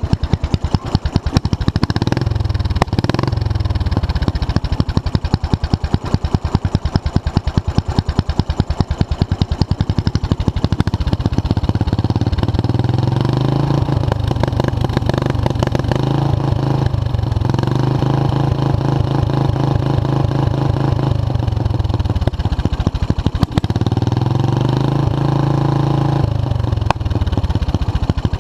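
Small engine of a Murray machine running through a new exhaust: a quick rev about two seconds in, then twice brought up and held at higher revs for several seconds, dropping back to a lower speed between and near the end.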